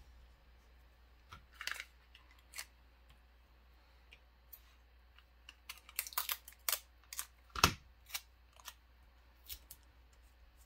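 Faint, scattered clicks and taps from small electronic components and a plastic tape dispenser being handled on a cutting mat as parts are taped down to paper, with one sharper knock about three-quarters of the way through.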